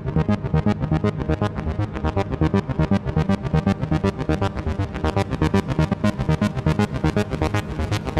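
Background music: rapid, evenly pulsing notes over a low bass.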